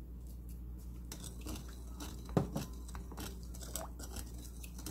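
A spoon stirring coarse sea salt into water in a glass bowl: faint scraping and light clicks as the salt dissolves, with one sharper tap against the bowl about two and a half seconds in.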